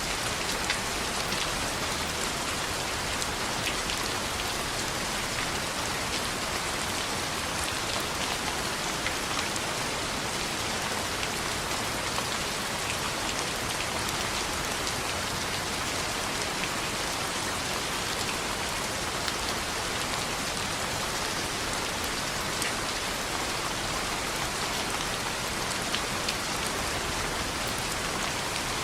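Steady rain on a window: an even hiss dotted throughout with small, sharp ticks of drops.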